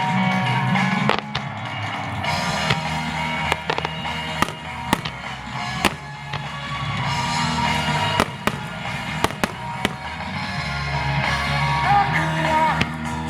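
Starmine fireworks show set to pop-rock music with guitar, with about a dozen sharp fireworks bursts cracking through the music at irregular intervals.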